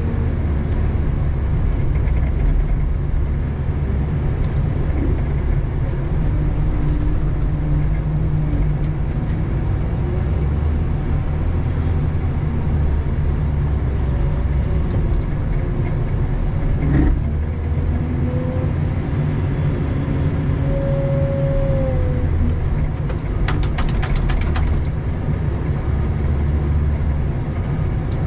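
Doosan DL250 wheel loader's diesel engine running steadily, heard from inside the cab. A single sharp knock comes a little past the middle, and a quick run of clicks comes near the end.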